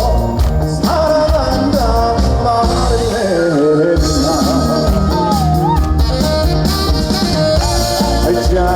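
Live band playing a trot song at concert volume, with a steady drum beat under a wavering, vibrato-laden melody line.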